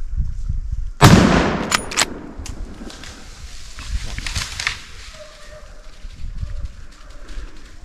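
A single hunting gunshot about a second in, with a long echo trailing off, followed within a second by a few sharp clicks.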